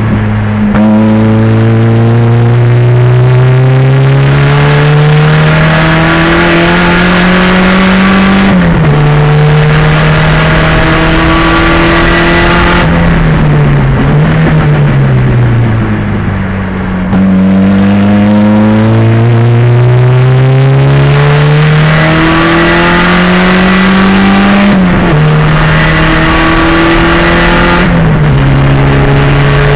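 1987 Pontiac Fiero's 2.0-litre turbocharged engine racing on track. Its pitch climbs under hard acceleration and drops sharply at an upshift about 8 seconds in, then falls away from about 13 seconds as the car slows. It climbs again through two more drops near the end.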